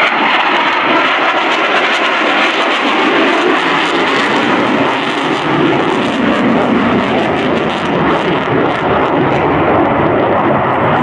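F-22 Raptor's twin Pratt & Whitney F119 turbofans at high power as the jet pulls a hard, high-G turn: a loud, steady jet roar with a crackling edge through most of it.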